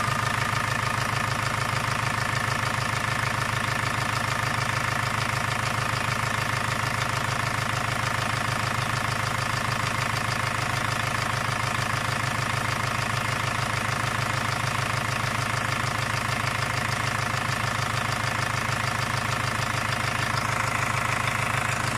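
Ford Focus 1.8 TDDI four-cylinder turbodiesel idling steadily with a fast, even knock running through it, which the owner puts down to a worn connecting-rod small end and piston pin.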